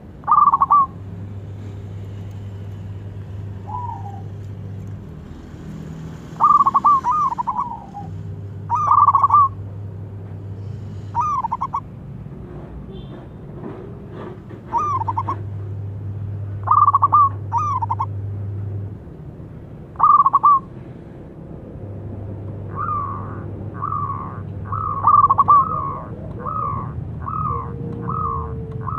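Zebra dove cooing: short rolling phrases of quick notes every few seconds, coming close together in a fast run near the end.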